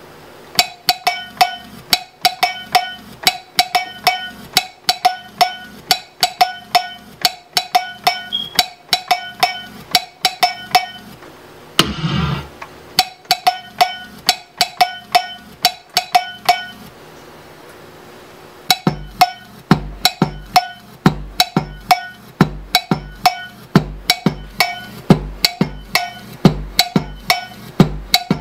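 Programmed drum beat played from a Boss SP-505 sampler: sharp percussive hits in a steady rhythm, many carrying a short ringing tone. It stops briefly with a noisy burst near the middle and again about two-thirds through. When it resumes, a deep kick drum joins in.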